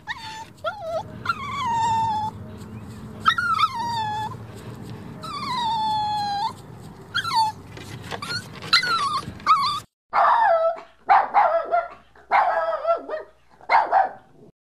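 A dog whimpering in four drawn-out, falling whines, then giving five short yelps in quick succession near the end.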